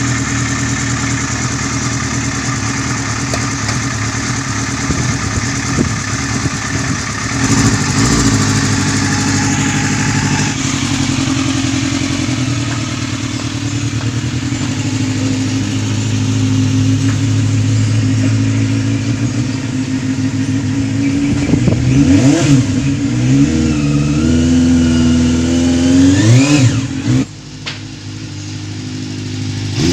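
Yamaha Zeal 250's inline-four engine running steadily after a carburettor synchronisation. In the last third it is revved several times, the pitch rising and falling, then drops suddenly back to a lower, steady idle near the end.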